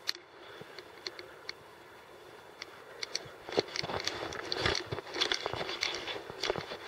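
Crunching footsteps: a few scattered crunches at first, then from about halfway in a steady walking rhythm of roughly a step every half second or so.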